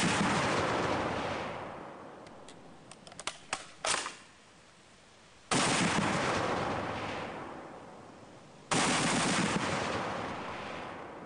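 Browning M2 .50 caliber heavy machine gun firing armor-piercing incendiary tracer rounds: three heavy reports a few seconds apart, the first right at the start, each followed by a long rolling echo that slowly dies away.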